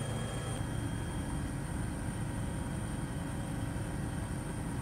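Steady engine and rotor drone of a helicopter heard from inside the cockpit: a constant low hum with a thin high whine above it.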